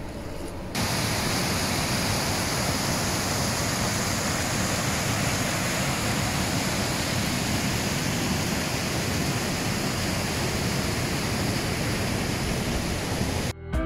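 Steady, even rushing noise that starts abruptly about a second in and cuts off just before the end.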